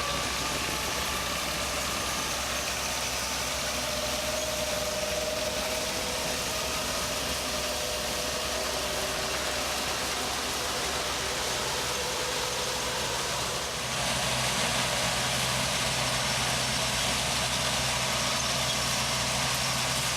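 Harvest machinery engine running steadily with a constant mechanical din, getting a little louder about two-thirds of the way through.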